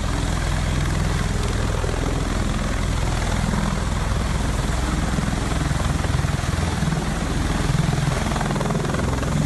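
Helicopter running up close, its rotor beating steadily and rapidly over the engine noise.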